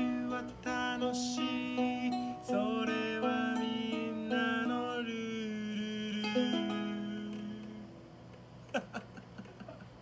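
Outro music, a melody over held notes, fading out about eight seconds in; a few faint clicks follow near the end.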